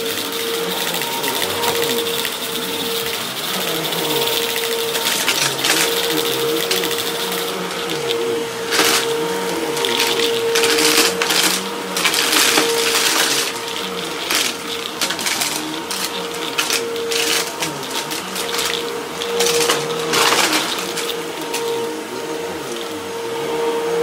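Upright vacuum cleaner running on a rug with a steady motor whine. From about a third of the way in, repeated crackles and rattles are heard as pellets and debris are sucked up.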